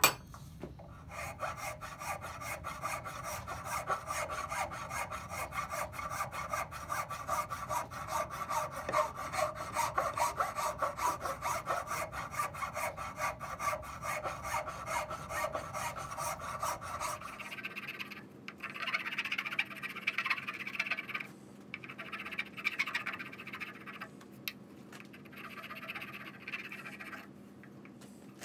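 Wooden mallet head being abraded by hand with fast back-and-forth scraping strokes, steady for most of the first two-thirds. After a change about two-thirds in, a file works the inside of the head's handle hole in short bouts with pauses between them.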